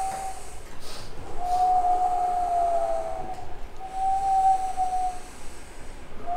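A man with rounded lips sounds a clear, whistle-like tone in held notes: a brief one at the start, a long one from about a second and a half in that dips slightly at its end, and a shorter one about four seconds in, over a faint breathy hiss.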